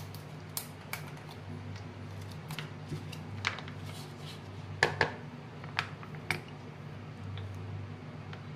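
A steel spoon clicking and scraping against a plate as grated vegetables are stirred, with a few sharper clinks around five to six and a half seconds in, over a steady low hum.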